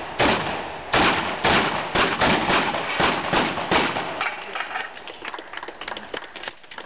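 Shotguns firing in quick succession, about nine loud shots in the first four seconds, some coming close together as two shooters fire at once. After that the shots stop and only fainter clicks and knocks are left.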